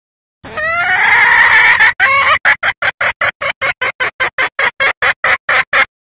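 Recorded call of a female red junglefowl, used as a lure to draw males: a drawn-out squawk rising in pitch, then a quick run of short, even clucks, about four a second, that stops abruptly.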